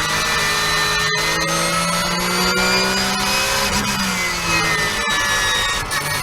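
Porsche 991.1 Cup car's 3.8-litre flat-six running hard on track, its pitch climbing through the revs, with brief sharp breaks at gear changes about a second in and again about five seconds in.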